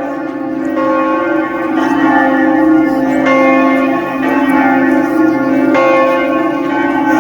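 Church bells of the Basilica of Our Lady of the Rosary at Fatima ringing. A fresh stroke comes every second or two, each ringing on over the ones before.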